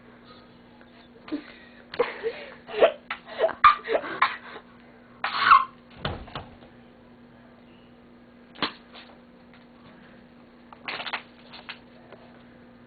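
A person's voice making short breathy sounds without words, in scattered bursts over a few seconds, then a single sharp click and one more brief burst, over a faint steady hum.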